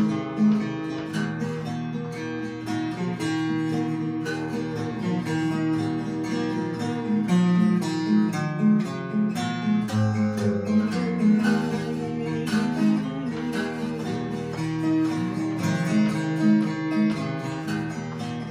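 Solo acoustic guitar playing an instrumental break in a folk song: picked and strummed chords at a steady rhythm.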